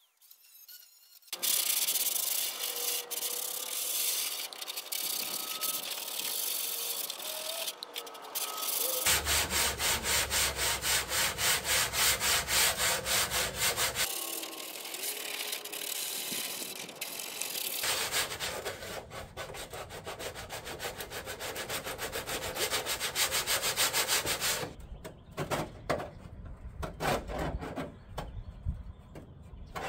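Electric angle grinder working over the steel door skin, grinding and brushing off rust and gunk, with stretches of rapid rhythmic pulsing as it bites. In the last few seconds it gives way to a hand tool scraping and knocking loose chunks of old vibration-damping coating off the inner door panel.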